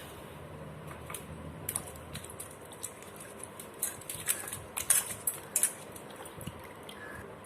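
Kitchen handling noises: scattered light clicks and clinks of dishes and washed vegetables being moved about, with a cluster of louder knocks about four to six seconds in.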